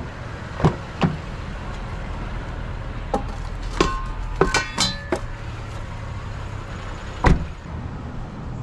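Scrap metal being handled and loaded: a series of knocks and clanks, several ringing briefly around the middle, with one heavy knock near the end. Under them runs a steady low vehicle hum.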